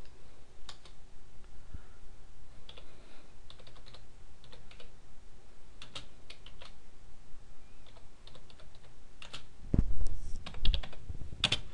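Typing on a computer keyboard: irregular keystrokes in short runs, with a few louder, deeper thumps near the end.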